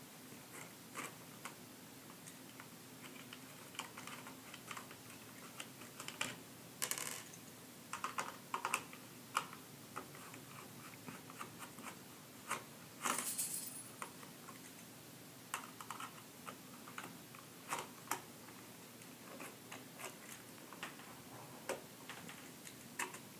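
Small Phillips screwdriver turning tiny screws out of a Polaroid #365 electronic flash's case: faint, irregular clicks and ticks, with a brief scraping rustle about halfway through.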